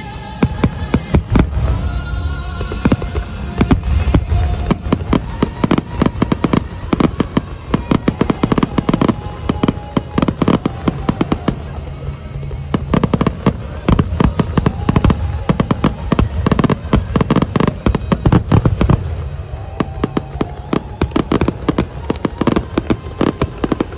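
A dense barrage of fireworks going off, many sharp bangs and crackles a second, with brief lulls, over orchestral show music.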